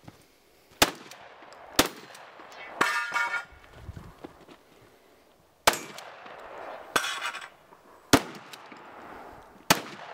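Twelve-gauge shotgun shots: five sharp reports at uneven spacing, one to four seconds apart, with two longer metallic clattering stretches between them, one about three seconds in and one about seven seconds in.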